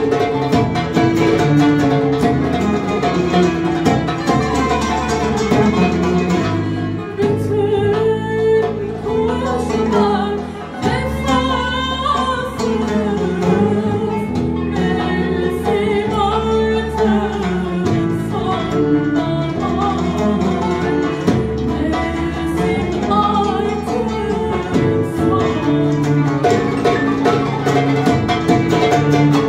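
A woman's solo voice singing a Turkish song live, accompanied by a plucked bağlama (long-necked lute) and an electronic keyboard. The accompaniment thins out for a few seconds near the middle.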